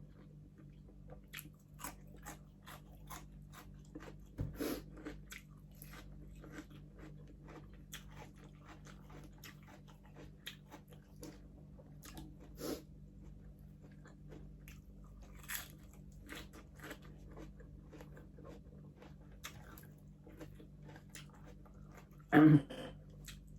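Close-up chewing and biting of crispy pata, the crackling deep-fried pork skin crunching in irregular, rapid clicks, over a low steady hum. A brief louder sound stands out near the end.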